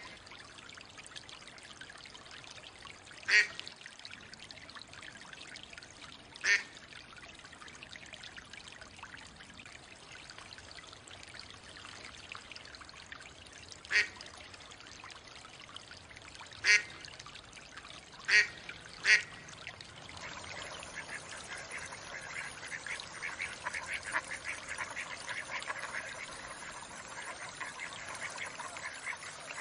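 Mallard ducks quacking: six short, single quacks spaced irregularly over a steady trickle of water. About two-thirds in, a softer continuous patter from the flock takes over.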